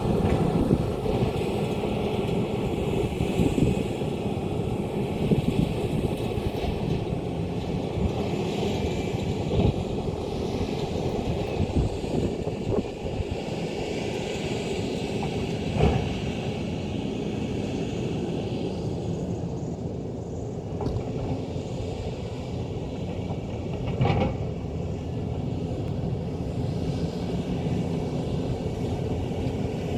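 Diesel engine of an excavator working under load, with two sharp knocks of machinery, about halfway through and again later.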